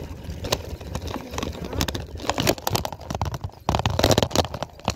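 A bicycle rattling and knocking as it rides over rough pavement, with a dense run of rapid knocks near the end as it rolls over a brick street.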